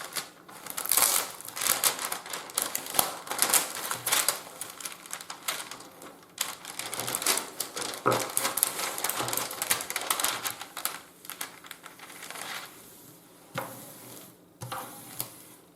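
Dense, irregular crackling and clicking of the plastic cover film on a diamond-painting canvas as it is handled and peeled from the sticky glue, thinning out after about 13 seconds.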